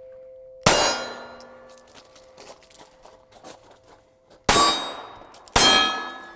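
Three pistol shots at steel targets, each hit ringing the steel plate in a clang that dies away over a second or so. The first comes about half a second in; the other two come near the end, about a second apart.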